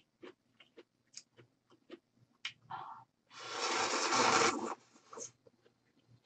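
Close-miked chewing and wet mouth clicks of someone eating noodles, with a loud rushing noise lasting about a second and a half in the middle.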